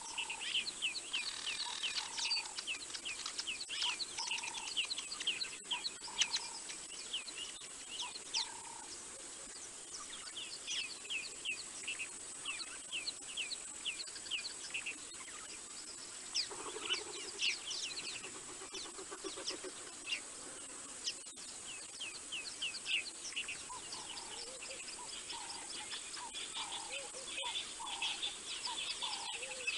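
Wild birds calling together: many rapid, short down-slurred chirps, mixed with lower repeated whistled notes and a brief lower trill past the middle, over a steady thin high-pitched hum.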